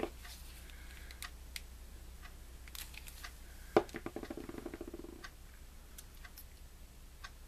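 Small clicks and taps of metal tweezers and paper pieces being handled on a cutting mat. About four seconds in, a sharp click is followed by a rapid rattling sputter lasting just over a second.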